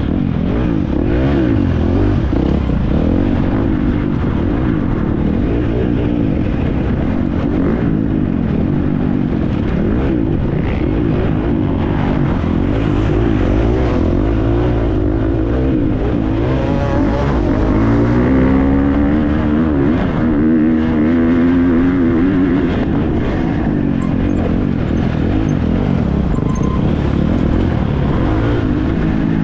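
Husqvarna FC350 motocross bike's four-stroke single-cylinder engine racing, its pitch rising and falling every second or two as the throttle is worked on and off. A louder, clearer run of rising revs comes a little past halfway.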